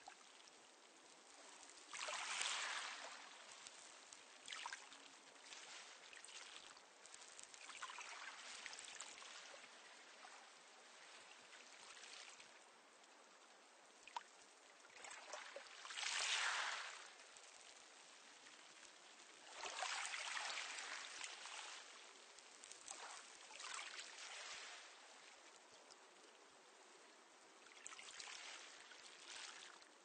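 Small, calm sea waves washing in on a pebble beach: a hiss of water that swells and fades every few seconds. The biggest washes come about two seconds in, about sixteen seconds in and about twenty seconds in.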